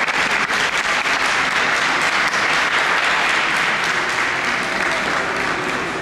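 Audience applauding the result of a bout: many hands clapping in a dense, steady patter that eases off slightly near the end.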